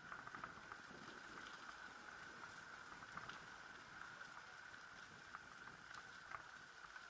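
Near silence: a faint steady high hiss with a few scattered faint ticks.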